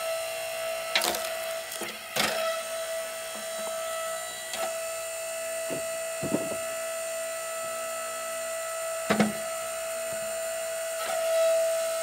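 Split Fire 1165 electric log splitter's motor running with a steady whine, which swells near the end as the ram starts forward on a round. Several sharp wooden knocks and clunks come from split hickory pieces and chunks being handled, the loudest about a second in, about two seconds in and near nine seconds.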